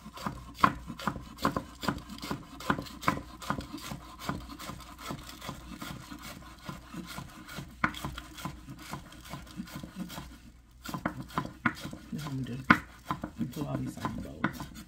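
Kitchen knife chopping green onions on a cutting board: a steady run of quick knife strikes, with a brief pause a little after ten seconds, then fewer, more spaced cuts.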